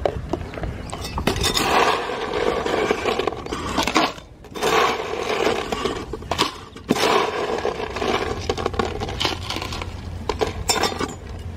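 Ice cubes scooped from a cooler and tipped into a plastic cup, clinking and rattling, in several scoops with short pauses between.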